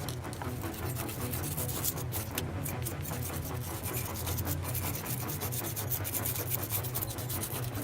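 Repeated rubbing or scrubbing strokes, irregular and fast, over background music.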